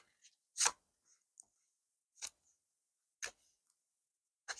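Four short, crisp paper clicks about a second apart, the first the loudest: the pages of a small tarot guidebook being turned by hand.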